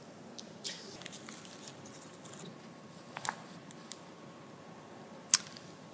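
Quiet room tone of a small studio with a few faint clicks and rustles of people moving at a table, and one sharp click a little over five seconds in.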